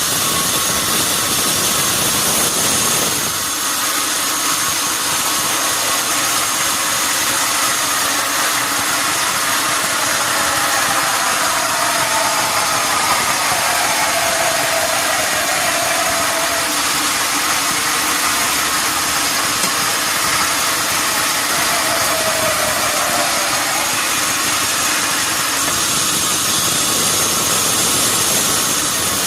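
Sawmill machinery running steadily. A faint whine slides down in pitch twice, in the middle and again later on.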